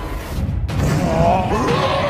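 Cartoon fight sound effects: the low rumble of a ground-cracking impact dies down, then a wavering pitched sound comes in about halfway through.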